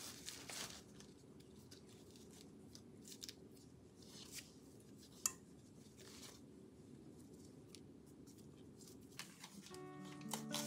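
Faint handling sounds from ears of corn being turned and set into a rice cooker's inner pot: scattered light rustles and soft clicks, one sharper click about halfway. Near the end come a scissors snip and music.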